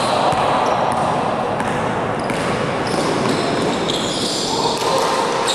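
Sounds of a basketball game in a large gym: a ball bouncing on the court among players' running steps and indistinct voices, all echoing in the hall.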